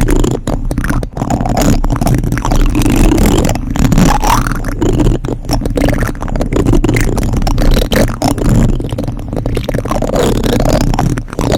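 Plastic spoons scraped and tapped directly against a microphone, a loud, continuous close-up rasp broken by many small clicks, with the low rumble of handling noise from contact with the mic.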